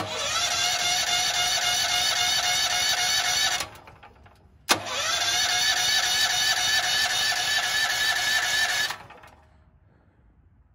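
Firman generator's electric starter cranking the engine in two long bursts with a short pause between, a steady whirring whine that stops without the engine catching. It is a no-start on natural gas with the choke set to start.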